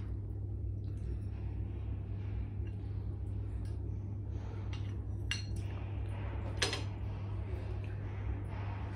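Spoon clinking against a ceramic bowl a few times while eating, the loudest clink about two-thirds of the way through, over a steady low hum.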